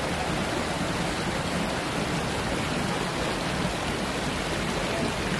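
Rows of small fountain jets splashing into a shallow pool, a steady rush of water.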